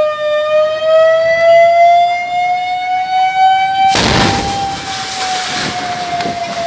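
Fire engine siren wailing slowly: a single tone rises over about four seconds, then slowly falls. About four seconds in, a burst of rushing noise comes in over it and fades.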